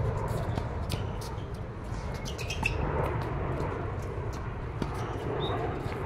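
Steady low rumble of a jet airliner flying low overhead, with sharp pops of tennis balls struck by rackets during a doubles rally and a few short high squeaks.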